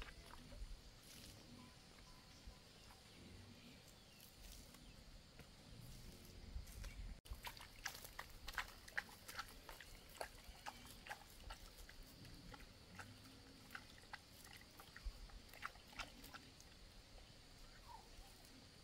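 Faint, scattered light ticks and small splashes as a plastic scoop is dipped into a plastic bucket and its contents are flung over vegetable plants, with a few faint low grunts in the background.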